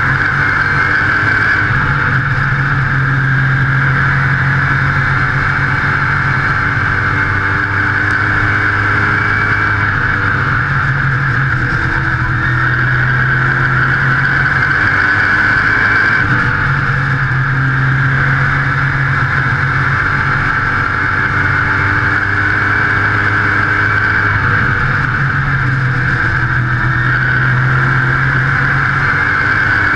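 Modified race car's engine at racing speed, heard from on board: a loud, continuous drone with wind and exhaust noise. The engine pitch drops and climbs again several times as the car goes off and back on the throttle through the turns.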